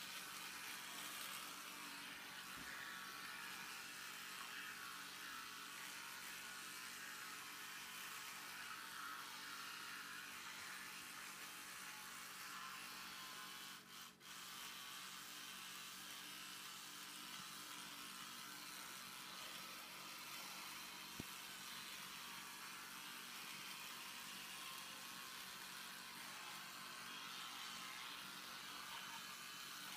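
Electric toothbrush buzzing steadily as it brushes a dog's teeth. The hum drops out briefly about halfway through.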